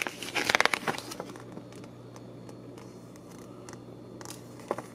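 Paper pages of a booklet rustling and crackling as they are handled and turned, busiest in the first second or so, then only a few faint ticks over a low steady hum.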